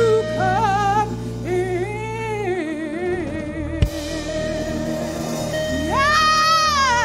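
Gospel worship song: a single voice sings long, wavering held notes over sustained chords, with a low bass note that drops out about two and a half seconds in. A brief sharp click near the middle.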